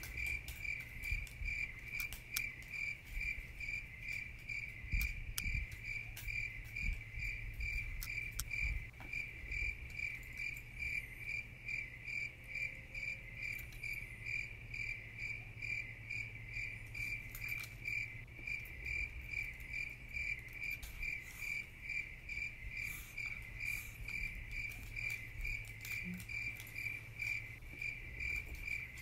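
A cricket chirping in a steady, even rhythm, about two chirps a second, over a low hum with a few soft knocks in the first several seconds.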